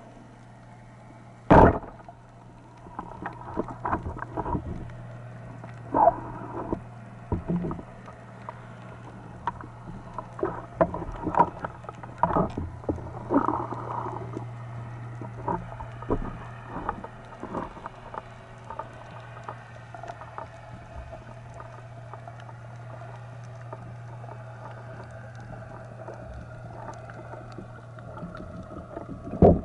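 Underwater sound of a band-powered speargun firing: one sharp, loud crack about a second and a half in, followed by scattered clicks and knocks of the shaft and line. A steady low hum runs underneath.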